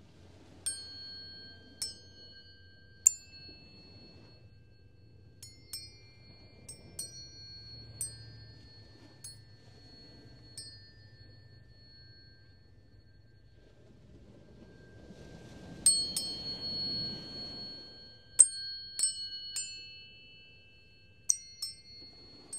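Tuning forks struck one after another, about twenty times, each strike a sharp ping that rings on as a long, pure, high tone. Several tones of different pitch overlap and fade slowly, as in a chakra tuning-fork series.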